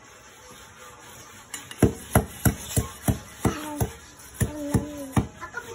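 Bolo machete chopping into a green bamboo tube: about ten sharp strikes, roughly three a second, starting about two seconds in.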